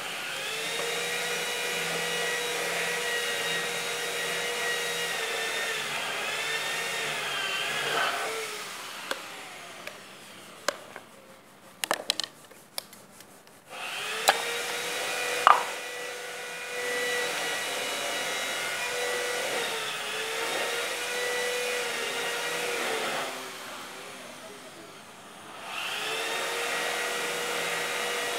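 A small electric motor runs with a steady whine, its pitch dipping now and then. It stops about eight seconds in, and a few sharp clicks and knocks follow. It runs again from about fourteen to twenty-three seconds, fades out, and starts up again near the end.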